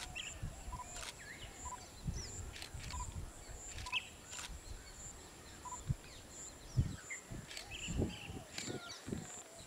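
Outdoor grassland ambience with birds calling: scattered short chirps and one bird repeating a single short note about once a second for the first six seconds. Underneath are a steady high-pitched buzz and irregular low rumbling noise with a few dull thumps.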